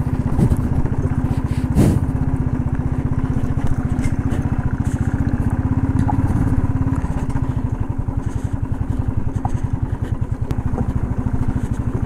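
Small vehicle engine running with a fast, even pulse as the vehicle travels along a rough off-road track, with a sharp knock about two seconds in and a few light rattles.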